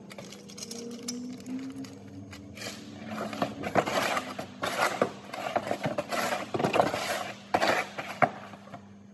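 Irregular rustling and scraping of something being handled close by, starting a few seconds in and going on in quick bursts, over a steady low hum.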